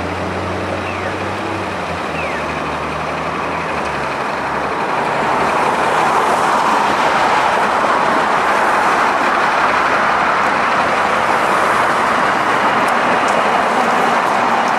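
A TTC city bus's engine running close by: a low hum for the first few seconds, then a louder, steady rushing noise from about five seconds in.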